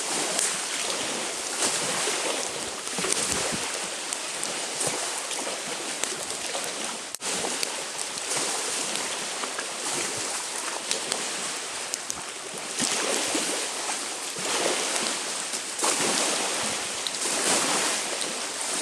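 Small wind-driven waves washing onto a lakeshore, with wind: a rushing hiss that swells and fades every couple of seconds.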